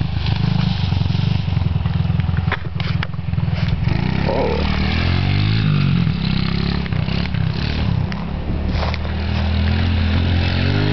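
Small 50cc single-cylinder four-stroke Honda pit bike engine running and revving, its pitch rising and falling, with a few sharp knocks around three seconds in.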